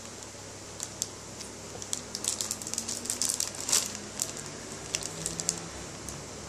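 Clear plastic wrapping crinkling and crackling under fingers, a dense flurry of sharp crackles in the middle with scattered ones before and after.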